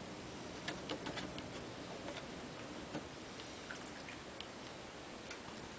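European badger eating peanut butter: faint, irregular small clicks and smacks of chewing and licking over a steady low hiss.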